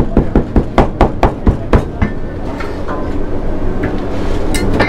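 Cleaver chopping fritters and crab sticks on a thick plastic chopping board in quick even strokes, about four or five a second, stopping about two seconds in. After that there is a steady background rumble with a few light clicks.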